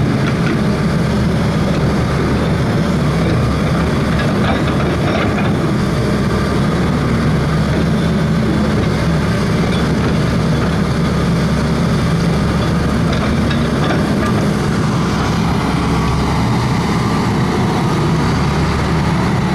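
Old excavator's diesel engine running steadily with a low, even hum.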